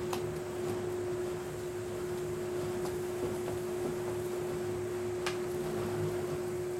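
A steady hum on a single pitch, with a couple of sharp clicks, one right at the start and one about five seconds in.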